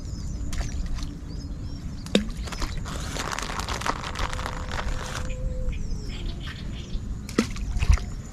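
Marsh ambience: small birds chirping over a steady low rumble of wind on the microphone, with a brief rush of noise around the middle and two sharp knocks.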